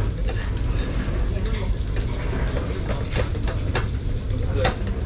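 Busy restaurant ambience: background chatter of other diners, repeated clinks and clatters of dishes and utensils over a steady low hum.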